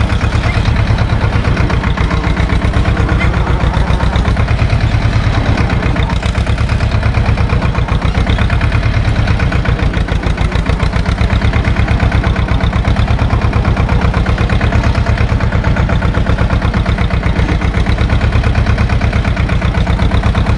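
SAME tractor's diesel engine running steadily at low revs with an even pulse, loud and close to the microphone.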